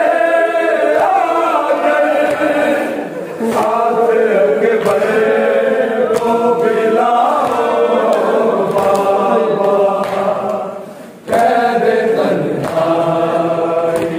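A group of voices chanting a noha, a Shia mourning lament, together in a steady sung recitation. The chant breaks off briefly about three seconds in and again about eleven seconds in, then carries on.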